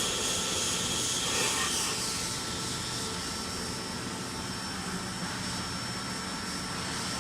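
Nakamura-Tome Super NTM3 CNC turning center running: a steady machine hum with several fixed whining tones over a broad hiss, the hiss easing a little about two seconds in.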